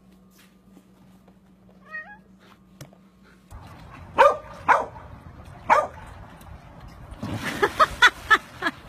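A cat gives one faint, wavering meow about two seconds in. Then a dog barks a few times, and near the end a splash as a dog jumps into a swimming pool comes with a quick run of barks.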